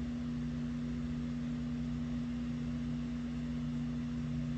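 Steady mechanical hum with a constant low drone and an even hiss underneath.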